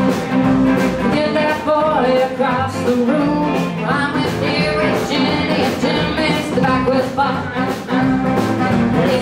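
Live blues band playing a 1950s-style blues number: electric and acoustic guitars over a steady drum beat, with a singing voice in the middle of the stretch.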